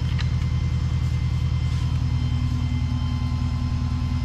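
Recovery truck's engine idling with a steady, low, fast-pulsing throb.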